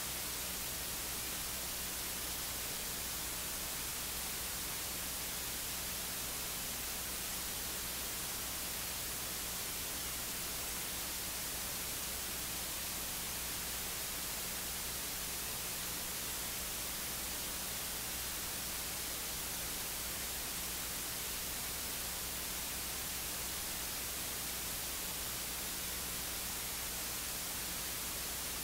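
Steady electronic hiss, like static, with a faint low hum underneath, unchanging throughout.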